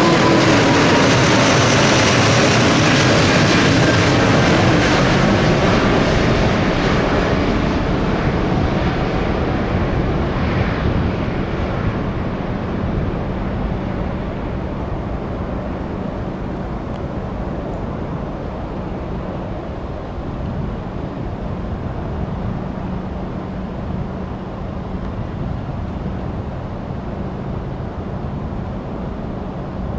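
Jet airliner passing by, its engine whine falling in pitch as the roar fades away over about ten seconds, leaving a distant steady rumble.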